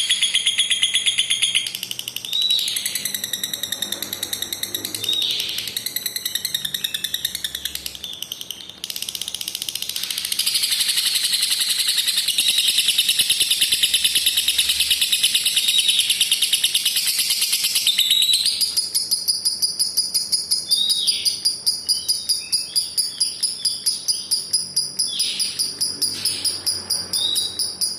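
Lovebird's long ngekek: an unbroken, very rapid, shrill chattering trill, with short chirps dropping in pitch breaking through it, more of them in the second half.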